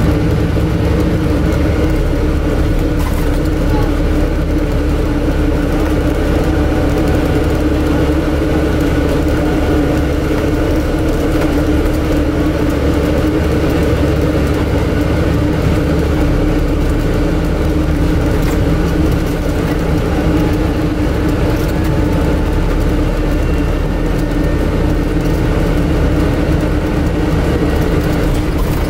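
Cabin noise aboard a Scania N250UD Enviro400 MMC double-deck bus under way: a steady drone dominated by the air-conditioning unit, which largely drowns out the five-cylinder engine and ZF automatic gearbox.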